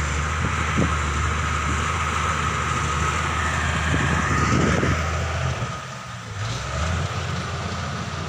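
Bulldozer's diesel engine running steadily; its note drops off about six seconds in and then picks up again.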